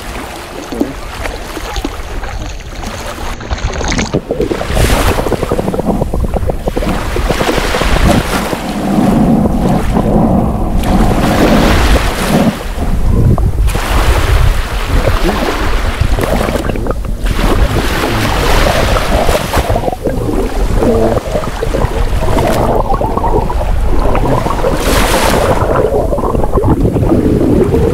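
Shallow beach water sloshing and rushing over a camera's microphone as it is dipped under the surface, coming in uneven surges. It turns much louder about four seconds in.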